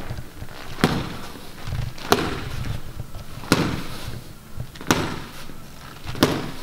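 Left jabs from boxing gloves landing on a target, five sharp smacks spaced about a second and a half apart, with light shuffling between them.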